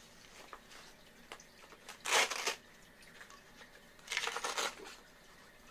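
Hook-and-loop fastener of a blood pressure cuff being worked as the cuff is wrapped around an arm: two short ripping bursts, about two seconds apart.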